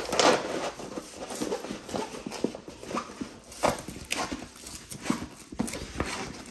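Stiff diamond-painting canvas under its plastic film crinkling and rustling as it is rolled and straightened by hand on a countertop, with irregular light knocks.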